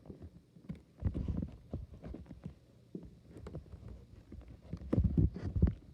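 Fireworks going off, heard as an irregular string of dull low booms and pops, with a close cluster of them about five seconds in.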